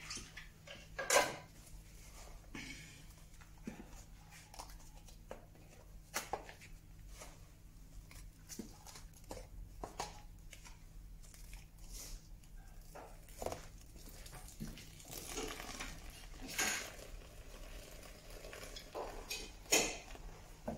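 Metal scoop clinking and scraping against the steel mould of a Multimate hand-lever briquette press and the tub as wet sawdust-and-paper pulp is shovelled in, with scattered knocks and a louder clank near the start and again near the end.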